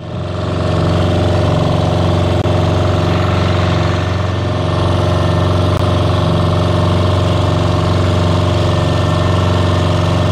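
Motor of a small outrigger boat running steadily while the boat travels, a loud, even engine drone that comes in abruptly at the start and holds at a constant pitch.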